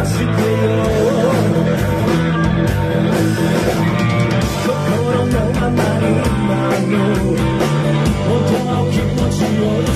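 Live rock band playing: a male lead singer over electric guitar and drums, heard from among the audience in a club.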